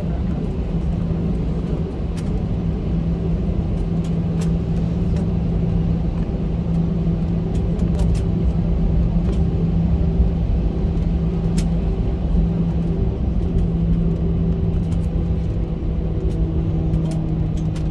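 Cabin noise of an Airbus A320 taxiing: a steady engine hum over a low rumble, with a few faint ticks.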